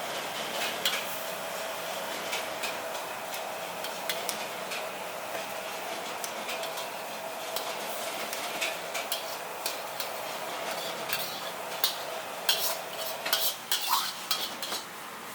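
Green vegetables sizzling in a hot wok while a metal spatula stirs and scrapes them, with frequent clanks against the pan that come faster near the end.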